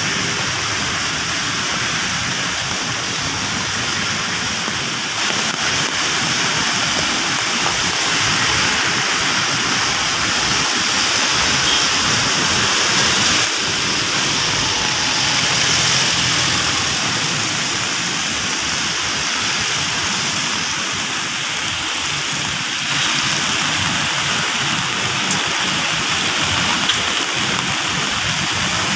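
Steady hiss of wet-road traffic: cars and vans passing with tyres swishing on the rain-soaked asphalt, with a few swells as vehicles go by, over falling rain.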